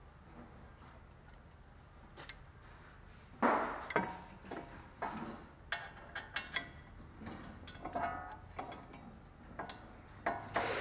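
Metal clinks and knocks from tools and brake hardware being handled, a quick run of sharp strikes starting about three and a half seconds in, some with a short metallic ring.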